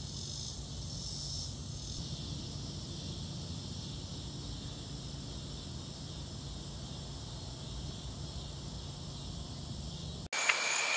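Chorus of crickets and other insects at dusk: a steady, high-pitched trilling over a low rumble. About ten seconds in it cuts abruptly to a louder, shriller insect chorus, with a single click at the cut.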